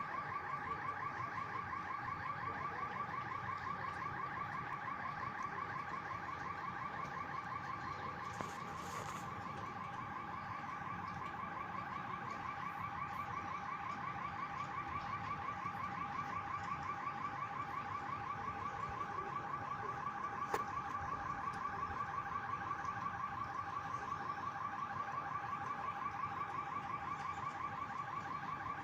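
An electronic alarm sounding a rapid, evenly pulsing tone without a break, with one sharp click about twenty seconds in.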